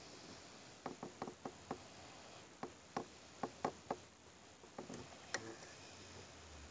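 Faint, irregular light clicks and taps, about a dozen in a few seconds, over a steady faint high-pitched whine.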